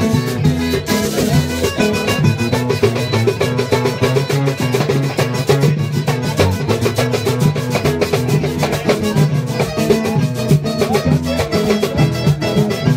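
Live merengue on acoustic guitars over a fast, even percussive beat.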